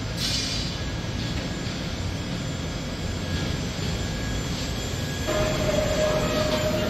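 Steady low rumble of a busy railway station and building site. A steady mid-pitched whine joins about five seconds in.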